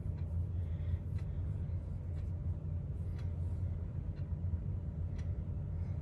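Steady low background rumble with a few faint, soft ticks scattered through it.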